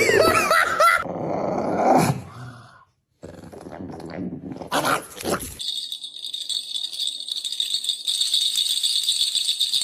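A dog vocalizing, with pitched calls that slide up and down in the first second, then a break; about halfway through, a steady high hiss starts and holds.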